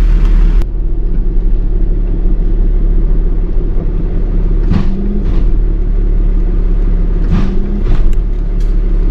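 Tow truck's engine running steadily as it drives slowly, a low rumble heard from inside the cab, with two brief knocks about five and seven and a half seconds in.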